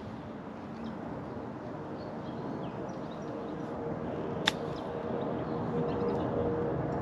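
A steady engine-like drone with a held tone, slowly growing louder, over faint high chirps. A single sharp click about four and a half seconds in.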